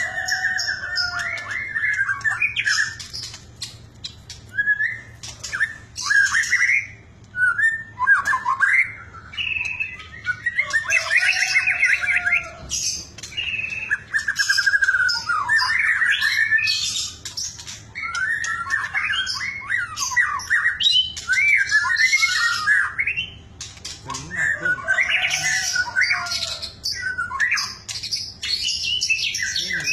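White-rumped shama singing: a long run of varied, quickly changing song phrases with brief pauses between them.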